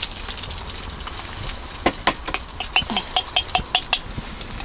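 A metal spoon clinking quickly and repeatedly against a metal dish, a run of ringing clinks about six a second for around two seconds, starting about two seconds in.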